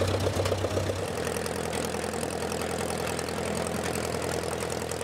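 Moline Universal tractor's four-cylinder engine idling with a steady, even beat. A deep hum under it drops away about a second in.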